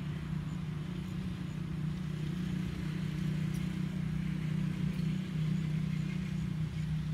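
A motor running steadily, heard as an even low hum.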